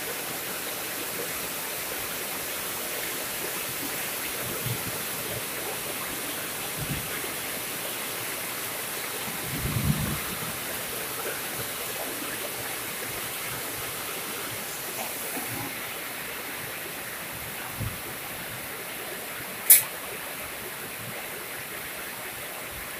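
Heavy rain falling steadily on the pond's water surface, an even hiss. A single sharp click near the end stands out over it.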